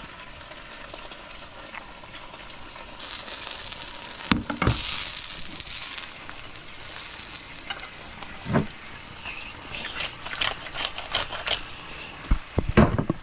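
Food hissing in a pan as a utensil stirs it, in two bouts of sizzling, with sharp knocks of the utensil against the pan about four seconds in, around eight and a half seconds, and several in quick succession near the end.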